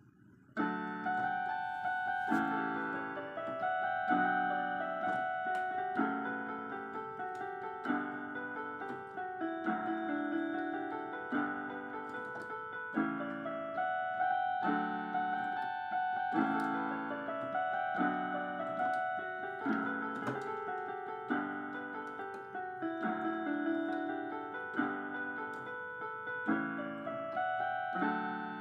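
Piano playing a gentle melody over evenly repeated chords. It starts about half a second in and dies away near the end.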